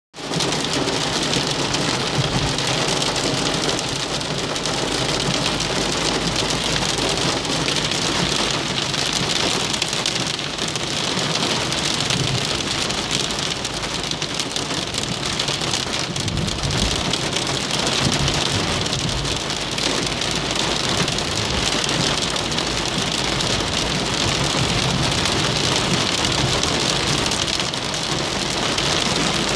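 Heavy storm rain, perhaps with hail, beating steadily and densely on a car's roof and windscreen, heard from inside the car.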